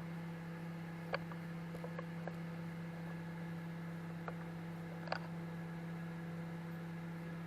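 Microwave oven running mid-cycle with a steady low hum, and a few faint ticks.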